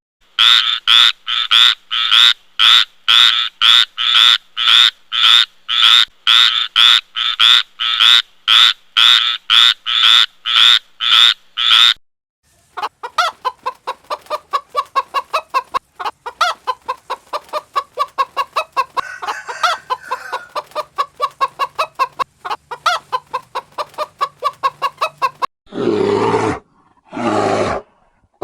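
Animal calls in three runs: loud, evenly spaced calls about two a second, then faster, softer calls of three to four a second, and near the end two long, harsh calls.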